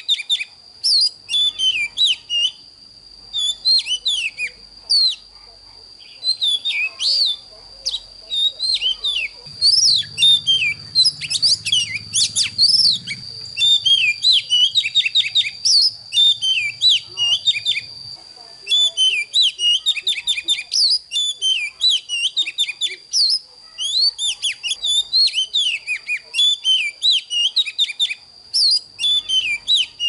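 Oriental magpie-robin singing: a fast, varied run of clear whistles and chirps with short pauses between phrases, over a steady high-pitched whine.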